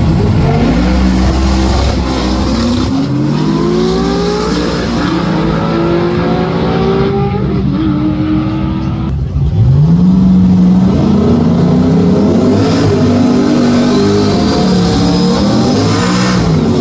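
Drag-racing car engines at full throttle, each run climbing in pitch and dropping back at every gear change as a car pulls away down the strip. Just under ten seconds in, a louder engine takes over and revs up again in the same climbing steps.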